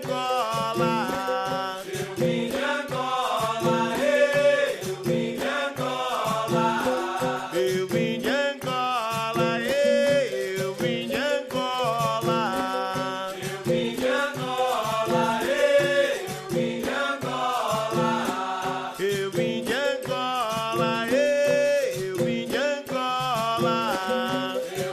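Capoeira music: voices singing over instruments with a steady, even beat.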